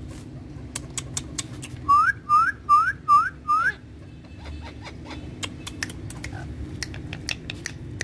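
Indian ringneck parakeet giving five quick rising whistles in a row, about two seconds in, among scattered short sharp clicks.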